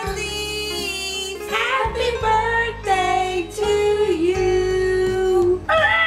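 Women's voices singing a song over plucked guitar accompaniment, with held, bending sung notes over a steady bass.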